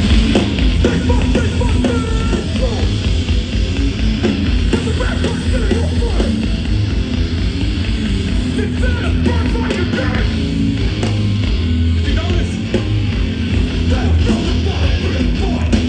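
Hardcore punk band playing live and loud, with heavy guitar.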